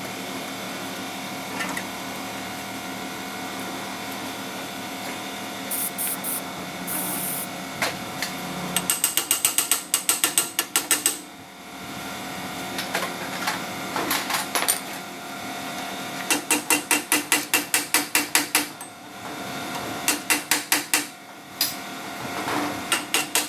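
Hand ratchet wrench clicking in repeated runs of quick, even clicks, about six or seven a second, as bolts on the wheel hub are worked. For the first several seconds only a steady hum is heard before the ratcheting starts.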